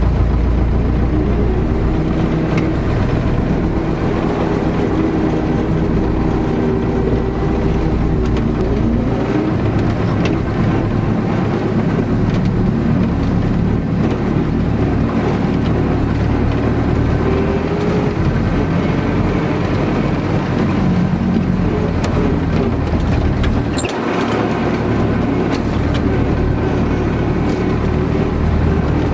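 MTZ-82 tractor's four-cylinder diesel engine running under way, heard from inside the cab, its pitch rising and falling with the throttle. A short knock sounds about three-quarters of the way through.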